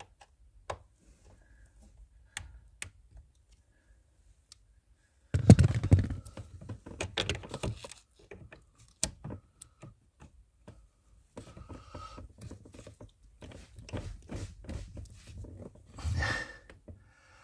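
Pliers and a screwdriver clicking and knocking against plastic trim and the hood-release cable under a car's dashboard, as the binding cable is gripped and pulled. It starts as a few sparse clicks, turns into a louder stretch of scraping and rattling about a third of the way in, and ends with another burst near the end.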